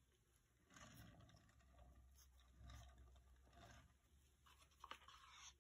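Near silence, with faint handling noises as a canvas is moved and a soft click a little before the end.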